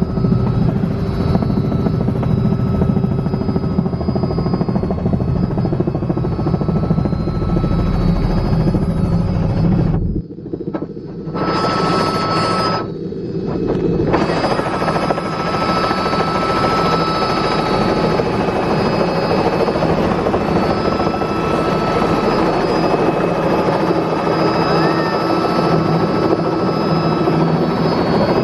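Robinson R66 turbine helicopter heard from inside the cabin while landing, a loud steady rotor and engine noise with a high turbine whine. The deep low rumble lessens about ten seconds in, with a brief break in the sound soon after, and the helicopter runs on steadily with the rotor still turning after touchdown.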